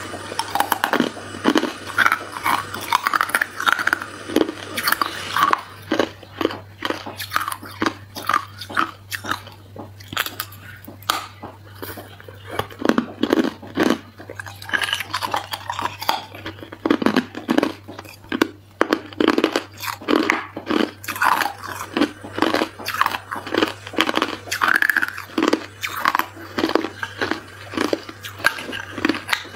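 Hard ice being bitten and chewed: a fast, irregular run of sharp cracks and crunches.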